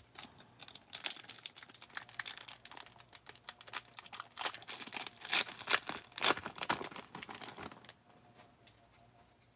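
Foil wrapper of a 1991 Fleer Ultra baseball card pack crinkling and crackling as it is torn open by hand. The crackling dies away near the end.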